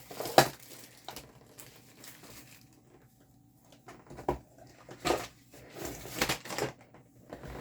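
Unboxing packaging being handled: intermittent rustling and crinkling with a few sharper handling knocks, the loudest about half a second in and a cluster of them in the last few seconds.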